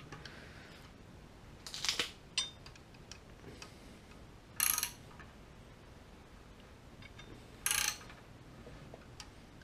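Ratchet wrench clicking in three short bursts about three seconds apart, turning the LS V8's crankshaft over by hand so the exhaust valve moves off peak lift toward its base circle.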